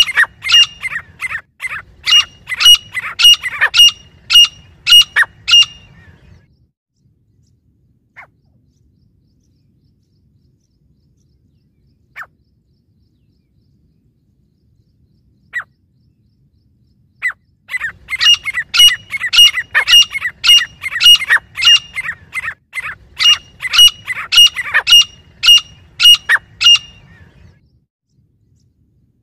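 Grey francolins calling: loud runs of sharp, ringing notes repeated about three a second. One run stops about six seconds in, a few single notes follow, and a second run of about ten seconds starts past the halfway point.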